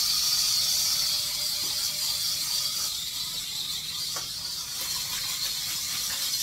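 Small electric motors and coaxial twin rotors of a toy IR flying-figure helicopter whirring steadily at speed, then cutting off abruptly near the end.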